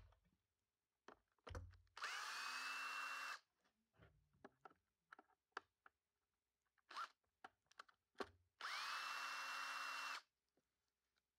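Cordless drill-driver running twice, about a second and a half each time, as it drives the screws of a Stihl SH86C shredder vac's intake grille; each run's motor whine rises quickly and then holds steady. Short clicks and knocks of handling come between the runs.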